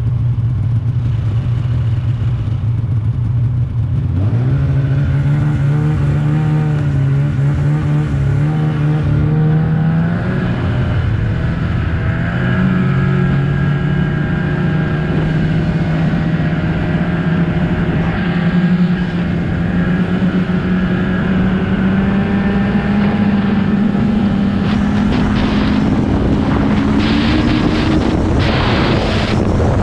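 Snowmobile engine idling, then pulling away about four seconds in and running at a steady speed, its pitch climbing again near the end as it speeds up. Gusts of wind noise hit the microphone near the end.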